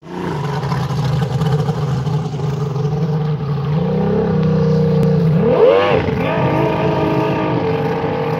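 Outboard engine of a carbon-fibre F1 racing powerboat running steadily, then revving hard in a quick rise and fall of pitch about five and a half seconds in as the boat speeds off across the water.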